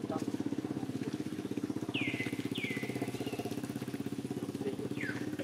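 A small engine idling steadily with a fast, even throb. Three short high chirps fall in pitch over it, two close together about two seconds in and one near the end.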